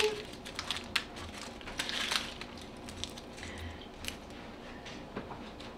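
Dry, papery onion skin crinkling and crackling as it is peeled off an onion by hand, in a string of small irregular clicks.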